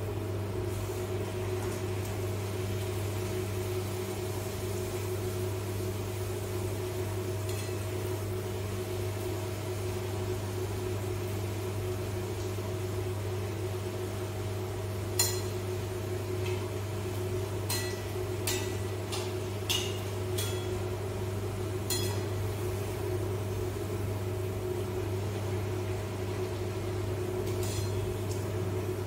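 Puri deep-frying in hot coconut oil in a pan, under a steady low hum. Several light metal clinks of a slotted spoon against the pan come around the middle.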